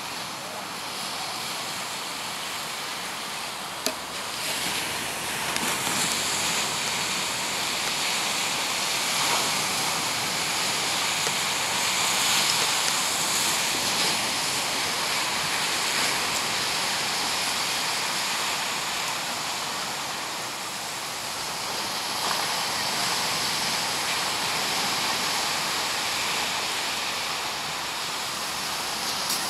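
Ocean surf breaking on the shore, a steady wash that swells and eases every few seconds. A single sharp click about four seconds in.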